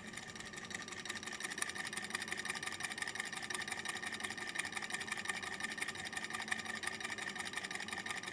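Sunnytech low temperature Stirling engine running fast on a mug of hot water, heard close up: a quiet, rapid, even mechanical ticking with a steady whir, which is the flywheel, piston and displacer cycling on the heat of the water beneath.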